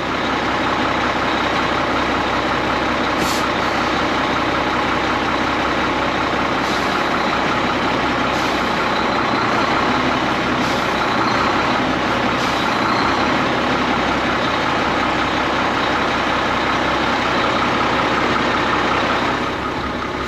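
Cummins M11 straight-six diesel of an ERF EC11 lorry running steadily at low revs, heard from the cab while the lorry is rocked back and forth on the pedals. A few short, faint hisses come and go over it.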